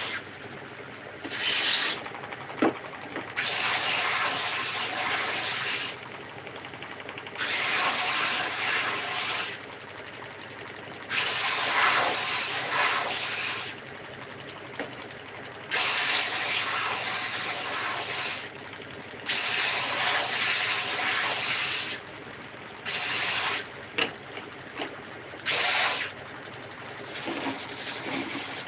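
Stationary belt sander stripping the old finish off wooden slats. The machine runs steadily, and each time a slat is pressed to the belt a loud sanding hiss rises for one to three seconds, about ten passes in all.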